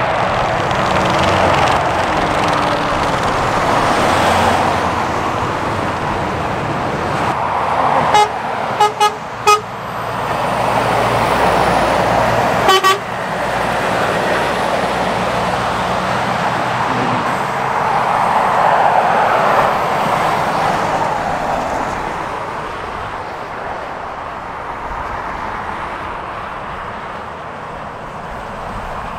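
Lorries and cars passing at speed on a dual carriageway, the road noise swelling and fading as each goes by. A horn sounds three quick short toots about a third of the way in, then one more a few seconds later.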